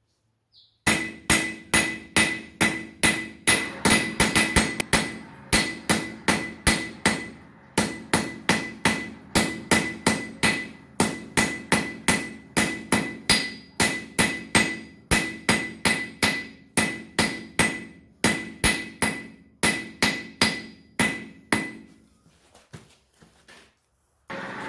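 Blacksmith's hand hammer striking steel on an anvil in a steady rhythm of about two to three blows a second, each blow leaving a bright metallic ring. There are a few short pauses, and the hammering stops near the end.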